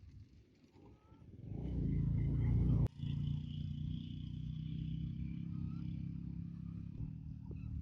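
Low motor-vehicle engine rumble: it swells for a second or so, breaks off with a sharp click, then runs on as a steady low hum for about four seconds.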